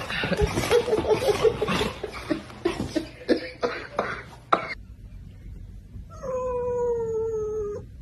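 Scuffling and sharp knocks during the first half, then a calico cat's single long meow, falling slightly in pitch and held for nearly two seconds.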